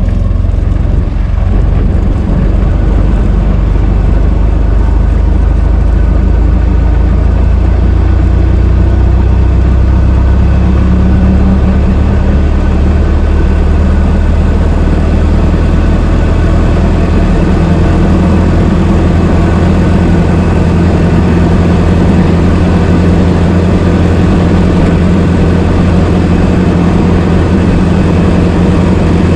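Old car's engine running steadily, with a low, even sound that stays at much the same speed throughout.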